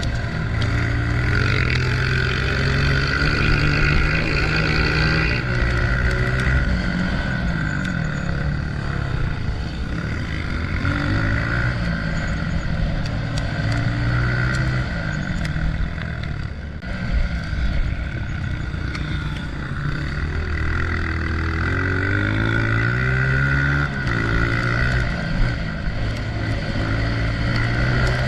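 Honda CRF125F's small single-cylinder four-stroke engine running hard off-road, its pitch repeatedly climbing and dropping back as the throttle is worked.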